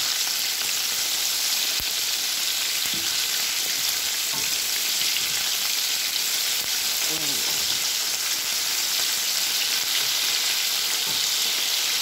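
Breaded chicken pieces deep-frying in hot ghee in a wok, making a steady, dense sizzle.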